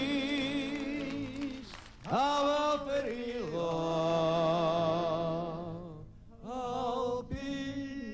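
Elderly man singing slow, long-held notes with a wide vibrato, in a mountain-style old urban song, over steady instrumental backing. The phrases break off briefly about two seconds in and again about six seconds in.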